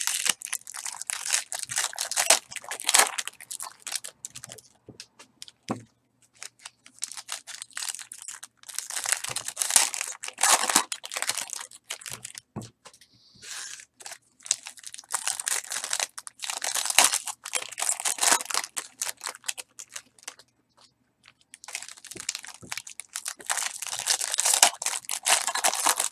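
Foil trading-card pack wrappers being torn open and crumpled by hand, crinkling in several spells with short pauses between them.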